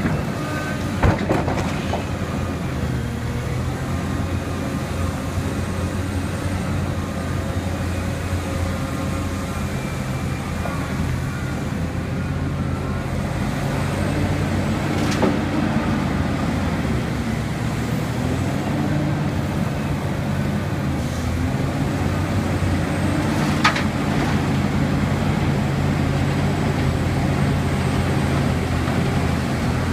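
Liebherr R 984 crawler excavator's diesel engine and hydraulics working steadily under load as it digs, swings and dumps a bucket of earth into a dump truck, the engine note shifting with the load. A few sharp knocks ring out, one about a second in, one midway and one near the end.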